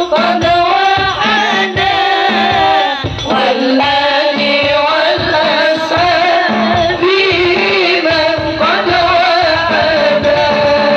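Sholawat, a devotional Islamic song, sung to a wavering melody over a steady drum beat.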